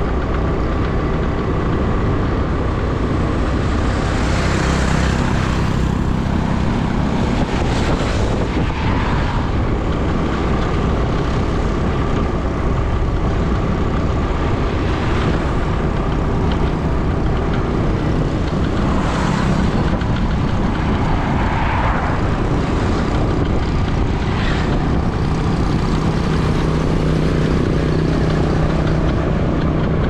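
Steady engine and road noise of a vehicle driving along an open road, heard from on board with wind noise over the microphone. A faint steady tone sits over the rumble, and several brief louder whooshes swell and fade along the way.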